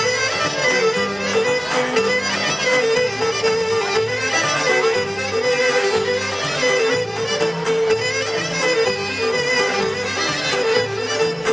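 Traditional Greek folk dance music played at a steady dance pace: an ornamented melody over a continuous held note, with a pulsing low beat underneath.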